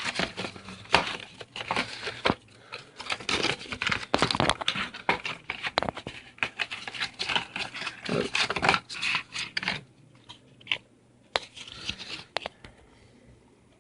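Earbud box and paper packaging being handled: rustling, crinkling and scraping as hands search through it. The sound is dense for about ten seconds, then thins to a few scattered clicks.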